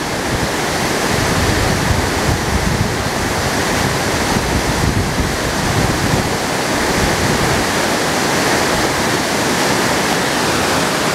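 Wind buffeting the microphone: a loud, steady rushing noise with a low, uneven flutter.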